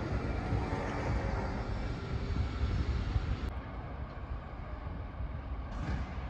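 Steady low rumble of outdoor noise with no distinct events, typical of engines and machinery on a construction site.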